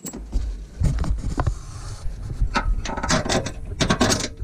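Metal clicks and scrapes of a transmission-mount through bolt being worked by hand into its hole in the frame rail, over a low rumble of handling noise on the microphone. The clicks come in clusters, thickest in the second half.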